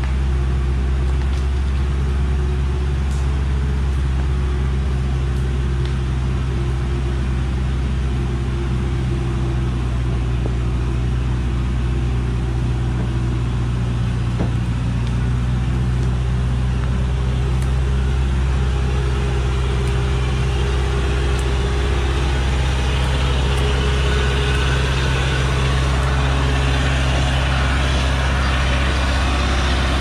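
Engine of a log truck overloaded with acacia wood, running steadily as it crawls along a dirt forest track: a loud, even, low drone that holds the same pitch throughout.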